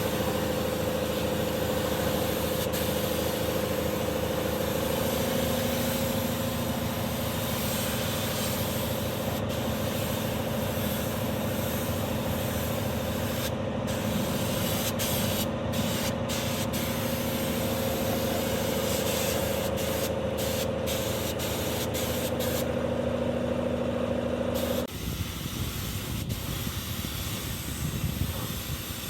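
Steady hiss of compressed air from a paint spray gun, over the steady hum of a running motor. About 25 s in the sound cuts abruptly to a quieter hiss without the hum.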